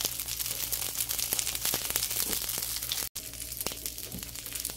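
Bread soaked in red chile sauce frying in a pan, a steady crackle, mixed with the crinkling of a plastic food-prep glove being pulled off. The sound drops out for an instant about three seconds in.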